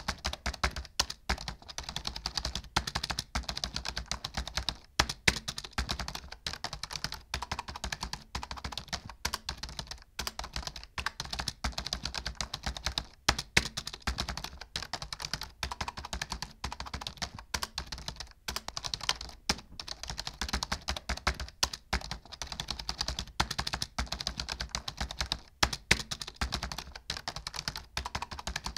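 Computer keyboard being typed on fast and without pause, a dense run of key clicks with a few louder strokes standing out now and then.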